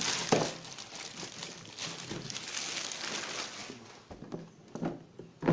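Clear plastic film wrapping crinkling and rustling as it is pulled off a new toilet cistern. It dies down about four seconds in, with a few light knocks near the end.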